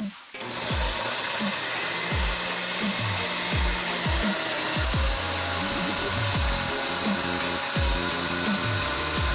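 Countertop blender motor starting about half a second in and running steadily with a high whine, pureeing chunks of fruit. Electronic music with a steady bass beat plays underneath.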